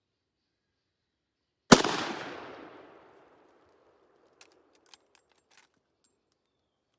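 A single rifle shot from a Winchester Model 94 lever-action in .30-30, its echo trailing off over about a second and a half. A few faint clicks follow a couple of seconds later.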